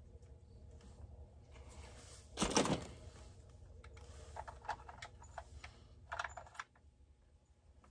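Small plastic and metal chainsaw parts clicking and clattering as they are fitted by hand, a few sharp clicks at uneven intervals, with one louder, longer scrape about two and a half seconds in. A low steady hum runs underneath.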